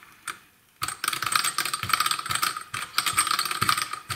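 Small two-cylinder hot-air Stirling engine model running, its metal pistons, cranks and flywheels clattering in a rapid stream of clicks. The clatter starts abruptly about a second in.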